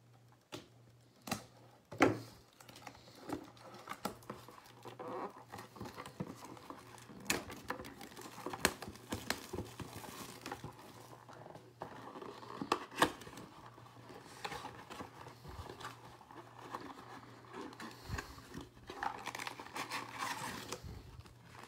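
Plastic shrink wrap crinkling and tearing as it is peeled off a cardboard trading-card box, with scattered sharp snaps and clicks; later the box's cardboard flaps are pulled open.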